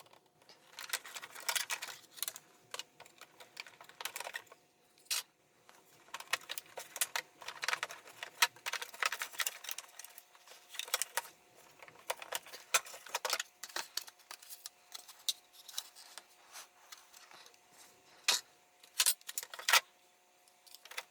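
Irregular clicks, taps and rattles of plastic vacuum cleaner parts and screws being handled while the housing of a Bissell upright vacuum is taken apart with a screwdriver, over a faint steady hum.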